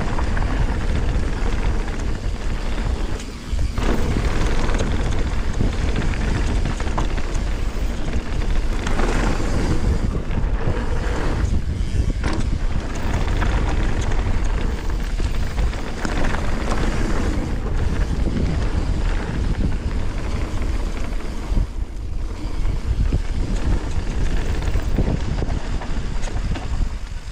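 Wind buffeting a GoPro's microphone on a fast mountain-bike descent, mixed with knobby tyres rolling over a dirt and gravel trail and the bike rattling over bumps. The noise is loud and rushing, with brief lulls a few times.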